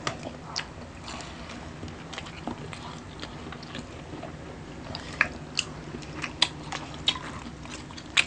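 A person eating seafood: chewing and biting with irregular wet smacks and sharp clicks, a few of them louder in the second half.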